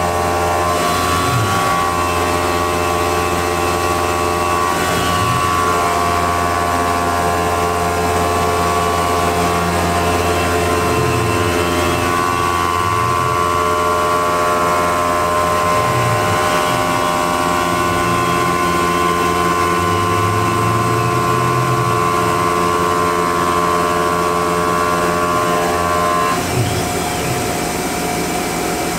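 A Tormach CNC mill's end mill cutting an aluminium block under coolant spray: a steady whine of spindle and cut made of several held tones. The tones stop together near the end as the cut finishes.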